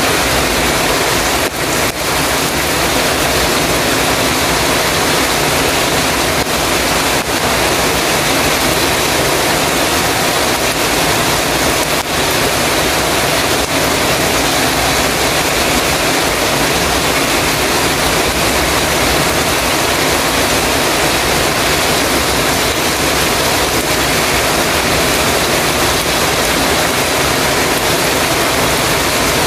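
Heavy rain pouring on a metal roof: a dense, steady hiss with no thunder.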